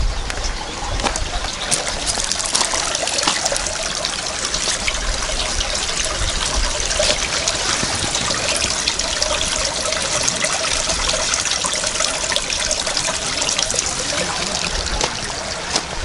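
Spring water spilling from its outlet and splashing into the pool below, a steady close trickling and splashing.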